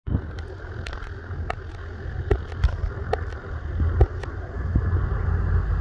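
Jet airliner engines, an easyJet Airbus A320-family jet, giving a steady rumble and hiss that slowly builds as the aircraft arrives. Wind rumbles on the microphone, and about eight sharp clicks are scattered through the first four and a half seconds.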